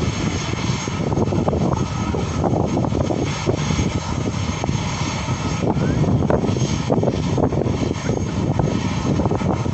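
Jet engines of an Airbus A320-family airliner running steadily as it rolls along the ground: a continuous deep rumble with a hiss above it.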